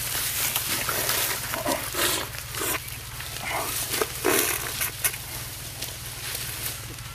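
Sugarcane being hacked down with cane knives: irregular sharp chops and cracks of the stalks with the rustle and crackle of dry cane leaves, over a steady low hum.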